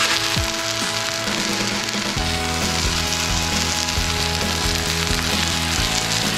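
Shredded-potato galette frying in oil in a cast-iron skillet: a steady, dense sizzle.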